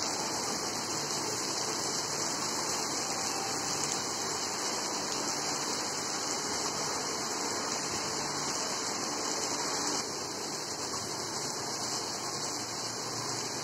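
Heavy tropical rain falling on paving, a steady hiss that drops slightly about ten seconds in.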